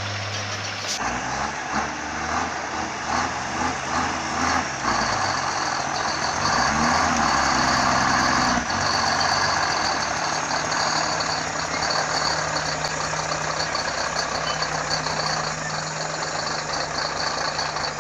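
Heavy diesel engine of a loaded log truck working hard under load, its pitch rising and falling in the first few seconds, then running steady and loud, with a thin high whine above it.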